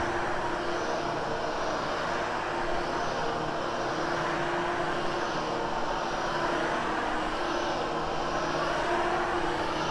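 Hoover HushTone vacuum cleaner running steadily with a constant hum, vacuuming carpet.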